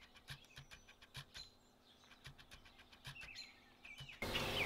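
Faint outdoor background with scattered short ticks and chirps, then a steady hiss comes in near the end.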